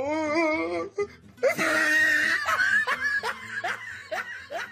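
A person laughing hard: a wavering high-pitched laugh, then after a short pause a run of quick repeated laughs.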